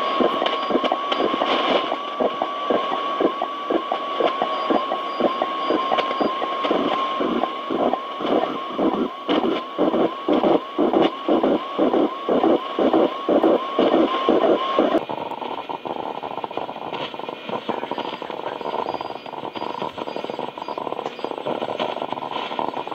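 Realistic DX-60 shortwave receiver tuned between stations, through its own speaker. A steady heterodyne whistle with a slightly wavering pitch sits over static and breaks into even pulses about twice a second. About two-thirds of the way in, the tuning jumps and the whistle cuts off abruptly, leaving a hiss of static and faint signals.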